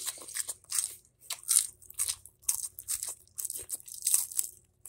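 Raw lettuce leaves crunching as they are bitten and chewed close to the microphone, in a quick, irregular series of crisp crunches about two to three a second.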